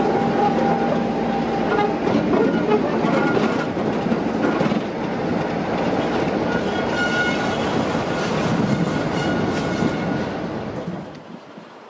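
Class 33 diesel locomotive 33108's Sulzer engine running steadily as it moves past on the track. The sound falls away sharply near the end.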